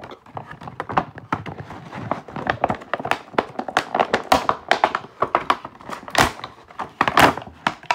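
Handling noise from a plastic toy analog alarm clock and its packaging: a busy run of taps, knocks and small clicks, with two louder rustling scrapes late on.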